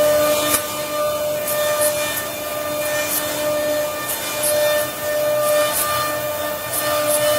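CNC wood-carving router running, its spindle whining at a steady pitch while the bit cuts wood, with short hissing scrapes about once a second.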